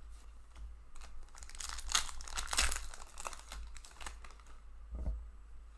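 Trading-card pack wrapper crinkling as it is torn open by hand, densest about two to three seconds in, with scattered light clicks of the cards being handled.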